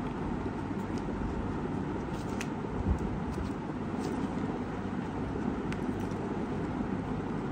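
Steady low background rumble, with small clicks of a cardboard cosmetics box being opened and handled and one soft thump about three seconds in.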